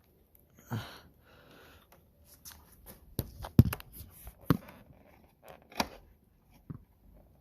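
Scattered clicks, taps and rubbing as a rubber-mounted bulb socket is worked and pulled loose from the plastic headlight housing of a 2004–06 Yamaha R1, the sharpest tap about three and a half seconds in.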